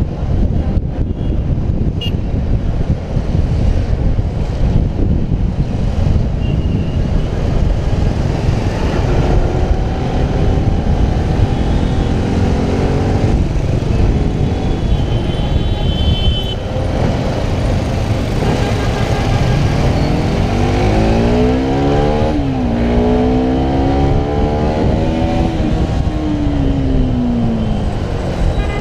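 Bajaj Pulsar 200NS single-cylinder engine under way, with heavy wind rumble on the microphone. In the second half its pitch climbs, drops sharply at a gear change, climbs again, then falls off as the rider eases off near the end.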